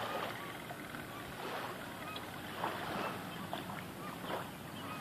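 River water lapping and sloshing at the bank and old pilings, coming in soft irregular swells, with a few faint short chirps behind it.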